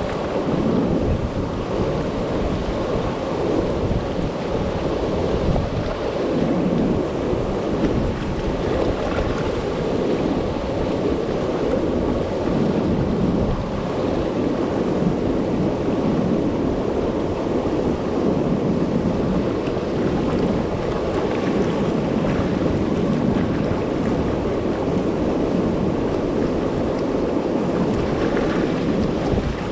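River water pouring over a low-head dam and churning in the turbulent spillway pool below it: a steady, heavy rushing noise without let-up.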